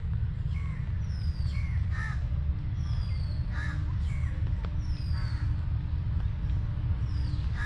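Crows cawing repeatedly, a call every second or two, over a steady low rumble.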